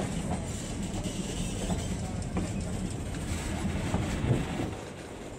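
Verde Canyon Railroad passenger train running on the track, heard from aboard: a steady rumble of the cars rolling, with a few light knocks of wheels over the rails.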